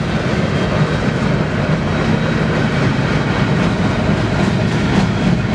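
BNSF freight train rolling past on the rails: a steady, loud rumble of wheels on track.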